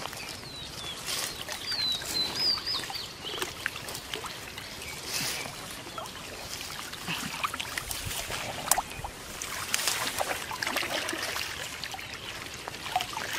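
Lake water sloshing, splashing and trickling as a bamboo-framed hand net is pushed and lifted through shallow water, with scattered small splashes and drips. A bird chirps briefly about two seconds in.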